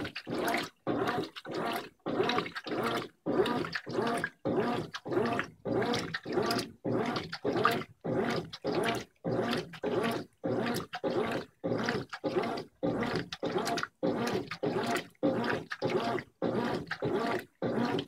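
Brastemp 15 kg top-load washer agitating a full load in its wash water: the agitator's strokes churn and slosh the clothes and water in a steady rhythm of pulses, about two a second, each broken by a short pause at the reversal.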